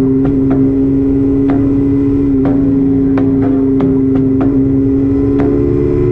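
Motorcycle engine running steadily at road speed, its pitch creeping up slightly near the end, with scattered short sharp clicks through it.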